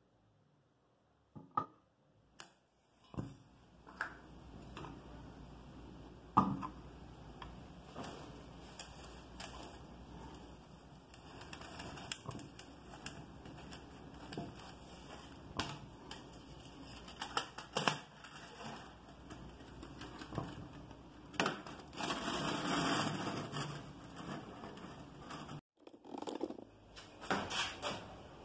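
Handling noise: small metal stove parts knocked and set down on a workbench, with scattered light clicks and one sharp knock about six seconds in. A longer rustle of fabric comes about three-quarters of the way through, as a cloth bag is handled.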